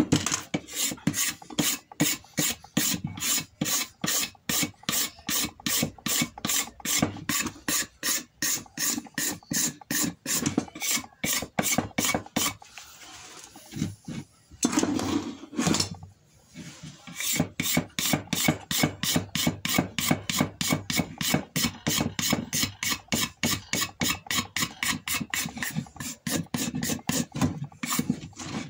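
Metal hand scraper drawn over an imbuia-wood Winchester rifle stock in quick, regular strokes, a few a second, scraping the old worn finish back to bare wood. The strokes stop briefly about halfway through, then resume.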